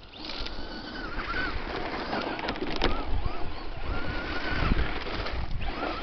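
Traxxas Slash 2WD radio-controlled truck's electric motor whining, its pitch rising and falling with the throttle several times, over the crunch and rattle of its tyres on loose gravel.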